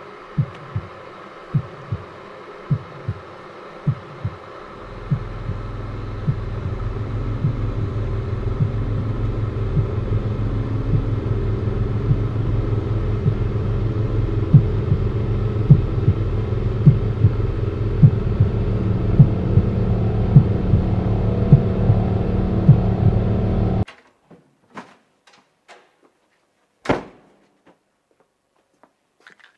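Film sound design: low heartbeat-like thumps, over which a low throbbing drone swells in about five seconds in and grows steadily louder. The drone cuts off abruptly near the end into near silence, broken by a few faint ticks and one sharp click.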